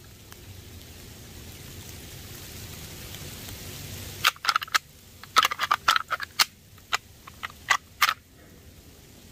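Steady hiss of light rain, then from about four seconds in a run of sharp clacks and rattles lasting about four seconds: a hand-held plastic deer rattling device worked lightly, imitating two bucks sparring and testing each other.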